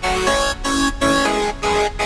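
Electronic background music: synth notes changing quickly over a pulsing beat.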